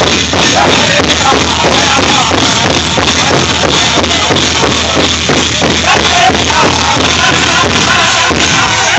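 Powwow drum group beating a large drum in a steady, fast beat and singing a prairie chicken dance contest song, the voices strongest in the second half.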